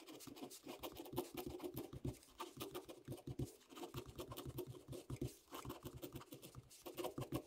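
Ballpoint pen writing on grid paper: a faint, quick, irregular run of short scratching strokes as letters are drawn.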